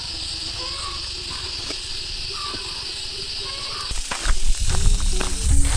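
A steady hiss with a low rumble underneath, then background music with clicks and knocks comes in about four seconds in.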